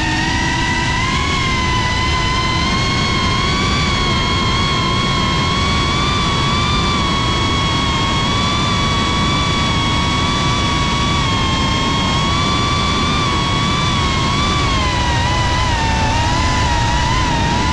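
FPV racing drone's brushless motors and propellers whining steadily at high throttle, the pitch wavering slightly with the throttle and dipping a little near the end.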